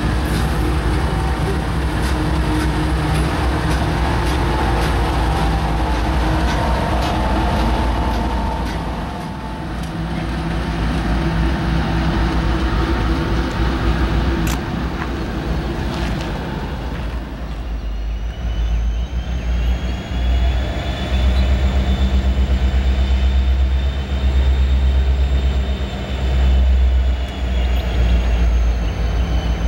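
Freight diesel locomotives running light pass close by with a steady engine drone that fades after about nine seconds. From a little past halfway, a heavier, pulsing low rumble of an approaching diesel freight train builds. It comes with a thin, high, slowly wavering squeal.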